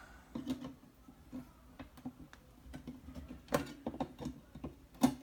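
Irregular clicks and light knocks of the cover being worked onto a 1955 Groma Kolibri typewriter to snap it closed, with sharper clicks about three and a half and five seconds in.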